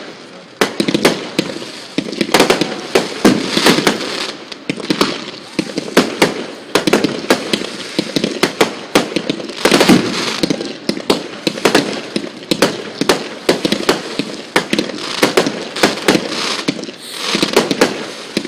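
Fireworks display: aerial fireworks going off in quick succession, many sharp bangs a second.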